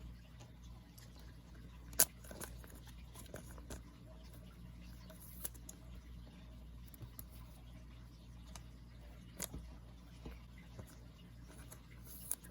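Quiet handling of trading cards being shuffled and set down, with scattered light clicks and taps, the sharpest about two seconds in, over a low steady room hum.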